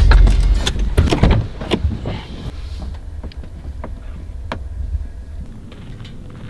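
Pickup truck driving over a rough dirt track, heard from inside the cab: a low rumble with rattles and knocks, loudest in the first second and a half, then quieter with occasional ticks.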